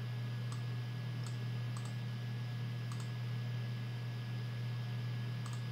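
Several faint computer mouse clicks at irregular intervals over a steady low hum.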